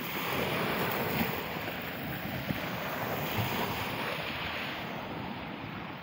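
Small sea waves breaking and washing up a pebble beach, with a steady hiss of surf. Wind buffets the microphone.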